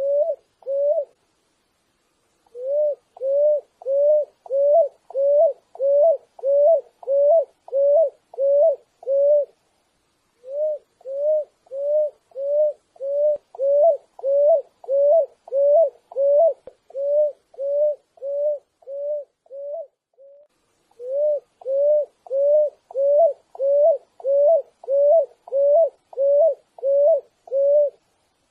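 Picui ground dove singing: a long series of short, low cooing notes, about two a second, each with an upward lilt at its end, in runs of a dozen or more notes broken by short pauses.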